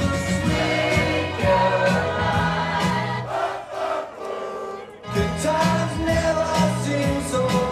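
Music with several voices singing together like a choir over steady low instrumental notes; it thins out a little past three seconds in and comes back fully about five seconds in.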